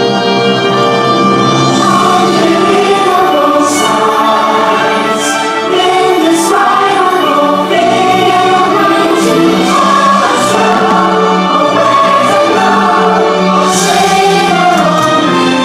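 Show soundtrack music: a choir singing held, soaring lines over an orchestra, with a few short high hisses scattered through it.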